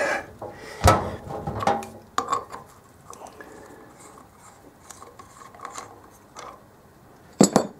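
Metal clicks and light rubbing as a threaded inspection cap is unscrewed by hand from the side cover of a 125 cc single-cylinder motorcycle engine. There are a few sharp clinks in the first couple of seconds, quieter scraping in the middle, and a loud double clink near the end.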